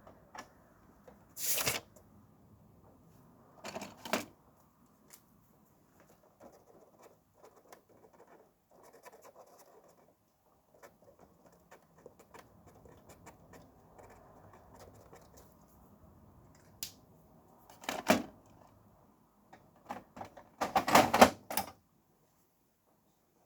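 Desk handling of paperwork and office items: a handful of short rustling clatters, with the loudest cluster near the end and small clicks in between. A faint steady traffic hiss runs underneath.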